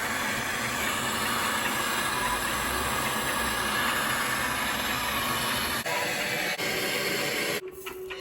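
Water heater recirculation pump running, with a steady rushing hiss of water over a faint low hum. It stops abruptly near the end.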